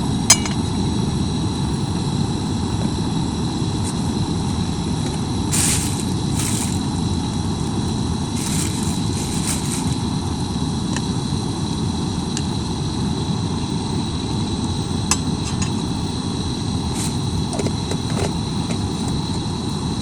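Kitchen range hood fan running: a steady low rushing hum with a faint high whine. A few light clinks of utensils against cookware sound over it.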